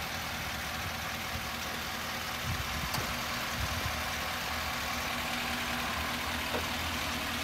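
2017 Ford F550 rollback tow truck's engine idling steadily.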